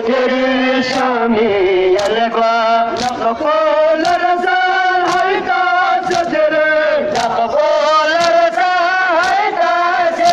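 A group of men chanting a Balti noha (a Muharram mourning lament) together, with sharp chest-beating strikes (matam) keeping time about once a second.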